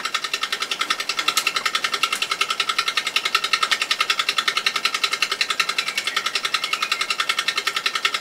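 A small electric machine running steadily with a fast, even pulse of about a dozen beats a second over a constant hum.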